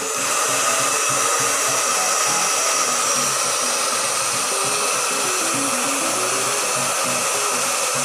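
Hand-held hair dryer running steadily, blowing hot air: a rush of air with a steady fan whine.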